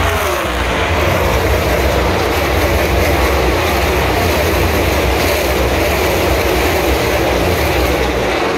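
NASCAR Cup stock cars' V8 engines racing past the grandstand, a loud, dense wall of engine noise. Engine pitches fall sharply in the first second as cars pass close by.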